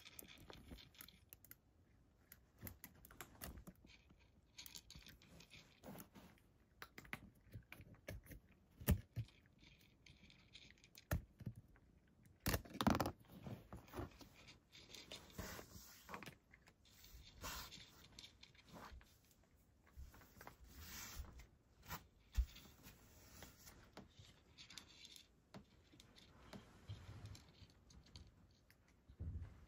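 A cat eating dry kibble from a dish: faint, irregular crunching and clicking as it chews, with a few louder crunches scattered through.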